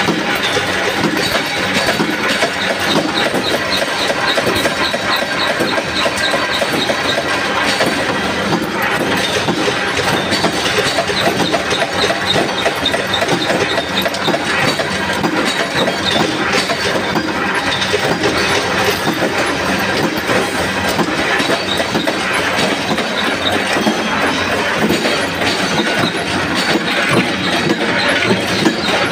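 Gear-driven mechanical punch press running continuously, stamping steel washers out of a steel strip in a fast, steady metallic clatter, with punched washers clinking down a metal chute.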